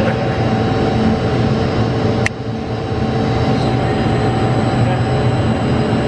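Overhead grab crane's drives running with a steady mechanical drone and hum while it carries a load of solid biomass, with a sharp click a little over two seconds in, after which the level dips briefly.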